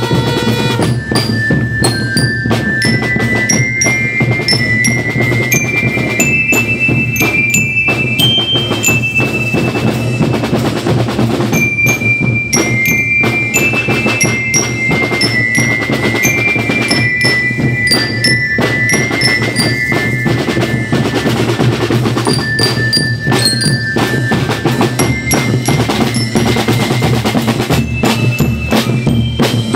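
A marching band's bell lyres play a bright, ringing melody over snare drums and bass drums, the snares rolling with dense, rapid strokes.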